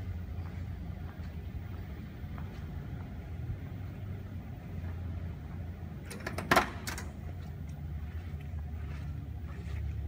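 A classic car's chrome door handle is pulled and the door latch clicks open with a short, sharp metallic clack about two-thirds of the way in. A steady low hum runs underneath.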